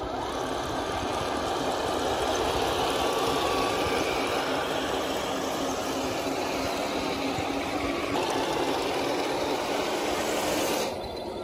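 Radio-controlled model tanks driving along a concrete path, a steady mechanical running noise of their motors and tracks that dips slightly near the end.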